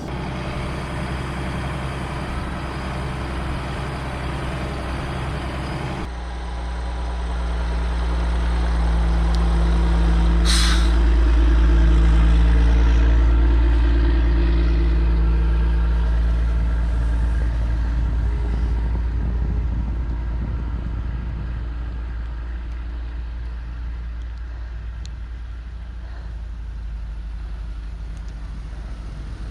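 LMTV military truck's diesel engine running under load while towing a Jeep through deep snow; the low drone swells and then eases off over several seconds midway. A short hiss about ten seconds in.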